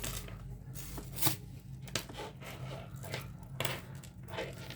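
Plastic beads and chain clicking and rustling as a tangled necklace is handled and worked apart, with a sharper click about a second in, over a steady low hum.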